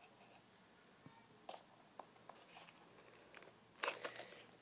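Faint handling noises from a small black watch box being opened by hand: scattered light clicks and rustles, with a louder cluster of clicks about four seconds in.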